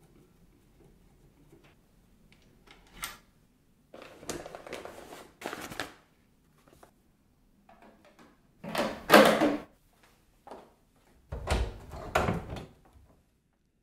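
Parts of a Dyson Airblade 9kJ hand dryer being handled during a main-body replacement. A few faint screwdriver ticks are followed by a series of scrapes and knocks of plastic and metal parts, the loudest about nine seconds in. A low thud comes around eleven seconds, as the main body is set onto its wall bracket.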